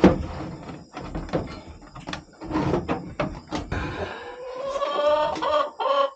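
Knocking and rattling, then about four seconds in a farm animal gives one drawn-out call of about two seconds that rises slightly in pitch.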